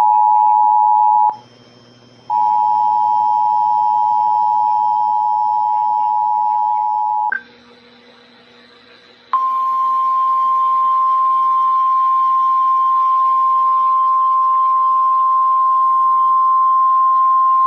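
Emergency Alert System attention signal on a NOAA Weather Radio broadcast: a loud, steady two-note tone that breaks off twice, briefly, with only a low buzz in the gaps. About halfway through it gives way to a single steady alert tone of one higher pitch. The tones herald a severe thunderstorm warning.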